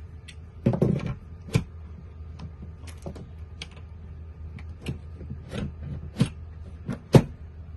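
Plastic clicks and knocks as a Bosch 18 V battery pack is handled and slid onto its charger: a dozen or so irregular sharp clicks, the loudest near the end, over a steady low hum.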